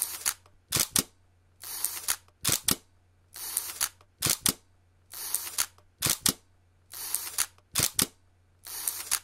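Camera shutter firing again and again, about every 1.7 seconds, five or six times. Each sharp double click alternates with a longer rasping noise like film being wound on. A faint low hum runs underneath.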